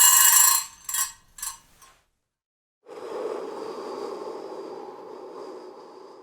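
Vibraslap rattle dying away: the loose rivets in its wooden box buzz and clatter, then stutter out in a few weaker bursts within about two seconds. After a short silence, a ringing sound sets in just before the three-second mark and slowly fades over about four seconds.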